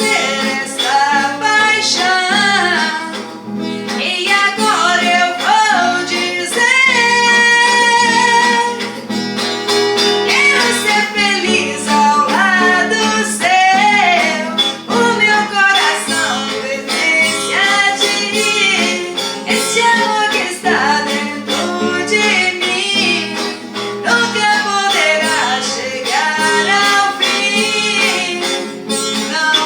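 A woman singing a song with instrumental backing that includes guitar.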